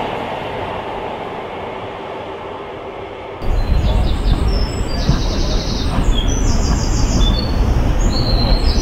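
GWR Class 150 Sprinter diesel multiple unit running past, its diesel rumble fading away. About three and a half seconds in, this cuts to a louder, uneven low rumble with small birds chirping over it.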